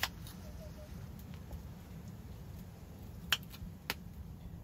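A large knife cutting vegetables on a flat stone: a few sharp taps of the blade striking the stone, the loudest at the very start and a little past three seconds in, over a steady low rumble.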